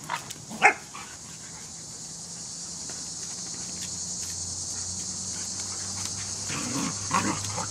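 Dogs play-fighting: two short barks within the first second, then more barking and growling near the end, over a steady high insect buzz.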